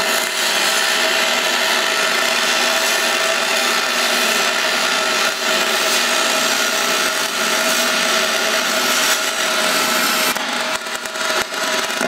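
MIG welding arc on cast aluminum, running Rockmount Neptune 0.047 aluminum wire: a steady loud hiss and crackle. In the last couple of seconds it turns choppy, with short breaks as the arc stops and restarts.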